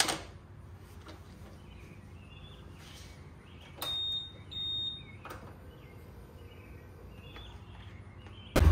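Mostly quiet handling, with a few small clicks and two short high-pitched electronic beeps about four and five seconds in. Near the end the Honda Super Cub C125's single-cylinder engine starts abruptly and runs loudly.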